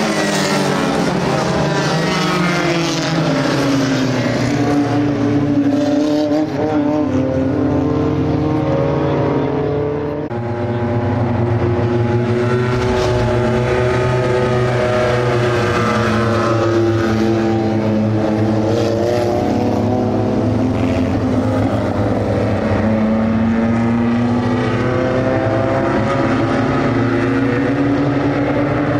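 A pack of dirt-track race cars running laps on a clay oval, several engines revving together, their pitch rising and falling as the cars come past and go away.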